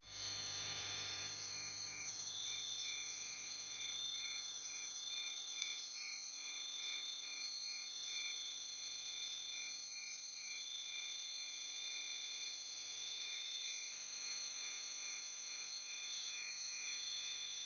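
Insect chorus: a steady high-pitched trilling with a chirp repeating about two to three times a second.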